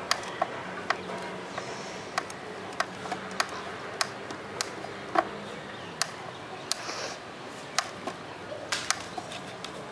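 Hand screwdriver driving a screw into a plywood bird feeder: sharp, uneven clicks and ticks, about one or two a second, as the screw is turned in stroke by stroke.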